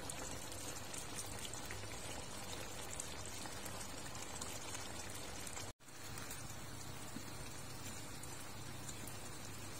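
Thick soy-sauce pork braise simmering in a steel wok: a steady, soft bubbling with fine pops as the gravy reduces and thickens. It breaks off for a split second about six seconds in.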